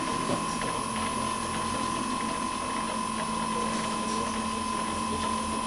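Lely Astronaut 4 milking robot running, a steady mechanical whine that comes on as the machinery starts and holds at one pitch, with a few faint ticks.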